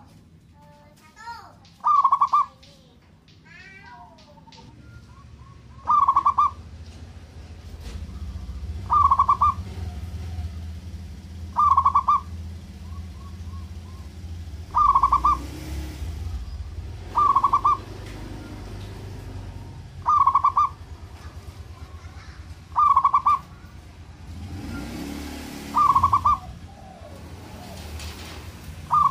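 Zebra dove (perkutut) cooing: short bursts of rapid, staccato coos repeated every two to three seconds, about ten times. Small birds chirp faintly in the first few seconds, and a low rumble comes in after about eight seconds.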